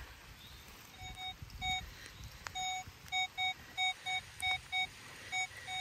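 Nokta Legend metal detector giving about a dozen short, irregularly spaced beeps on one mid pitch as the coil sweeps back and forth over a buried metal target, which reads as a deep, strong signal.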